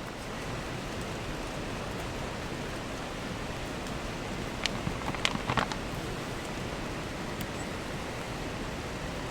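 Steady rush of a mountain stream flowing. About halfway through come a few light clicks close together.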